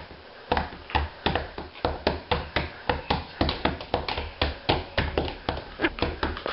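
A toddler tapping on a wooden sill: a steady run of quick knocks, about four a second, starting about half a second in.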